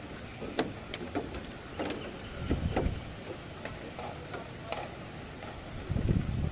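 Thunderstorm rain and wind: irregular ticks of drops landing close by over a steady wash, with two low gusts of wind buffeting the microphone, about two and a half seconds in and near the end.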